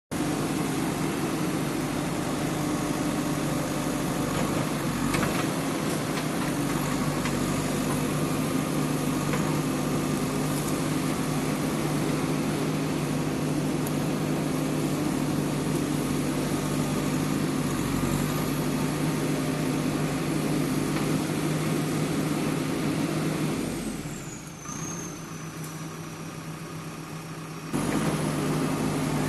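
JCB backhoe loader's diesel engine running steadily. Near the end it drops quieter for a few seconds with a high whine that falls and then holds, then comes back abruptly to full level.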